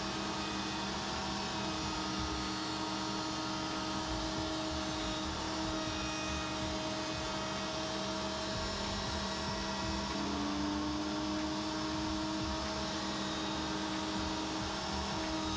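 Table-mounted router running at a steady high whine while a 1/8 inch rabbeting bit cuts a step along the edge of an MDF panel. Its pitch dips slightly for a few seconds past the middle, then comes back up near the end.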